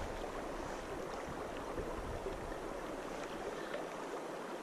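Steady outdoor background hiss, even and unchanging, with no distinct sounds standing out.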